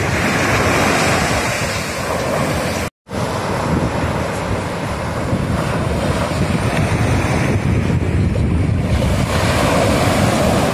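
Sea surf breaking and washing up on a sandy beach, with wind buffeting the microphone. The sound cuts out completely for a moment about three seconds in, then the surf resumes.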